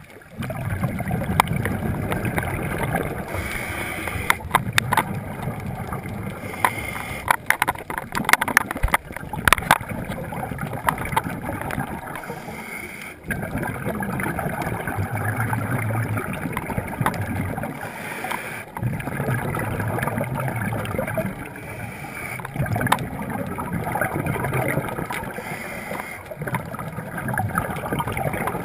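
Scuba diver breathing through a regulator, heard underwater: each exhalation bubbles out for a few seconds, with a short hiss of inhalation between, in a cycle of about five seconds. Scattered sharp clicks come through in the first third.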